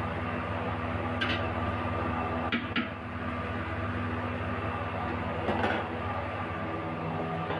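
A utensil scraping and clattering against a steel wok of frying chicken: once about a second in, twice close together near three seconds, and again about halfway through. A steady hum runs underneath.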